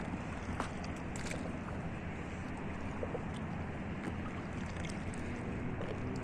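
Steady rush of wind and lapping water heard from on board a kayak on open lake water, with a few faint clicks.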